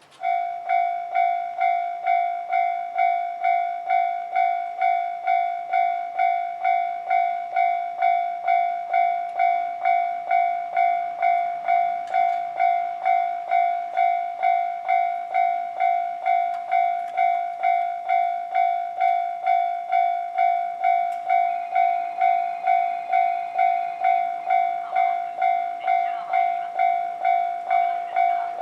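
Japanese railway level-crossing alarm: the electronic crossing bell starts and rings in an even, repeating ding, just under two strokes a second, warning of an approaching train. A short higher steady tone joins about three quarters of the way through, and train noise builds near the end.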